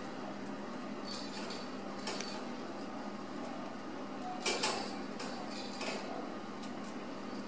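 Kittens scuffling around a wicker basket on a tile floor: a few scattered light clicks and rattles, the sharpest about halfway through, over a steady low hum.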